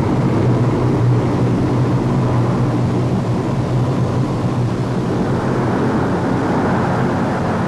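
The four turboprop engines and propellers of a Lockheed C-130 Hercules droning steadily in cruise flight, a constant low hum that keeps the same pitch.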